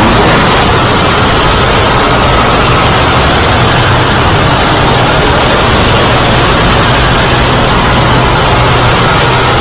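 Loud, steady static-like noise with a low hum underneath, heavily distorted.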